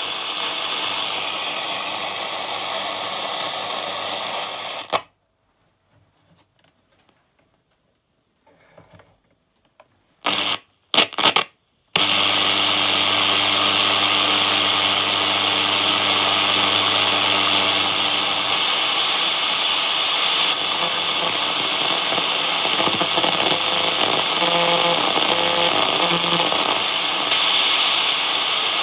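National Panasonic GX300 (RF-888JB) radio hissing with static between stations. After about five seconds it goes silent for several seconds, broken by a few short loud bursts of tuning noise. Then a steady static hiss returns, with faint tones from a weak station in it.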